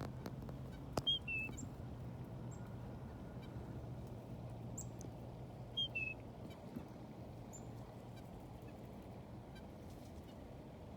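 Wild birds calling: a short two-note call, the second note lower, comes twice, about a second in and again near six seconds, with a few brief high chips scattered between.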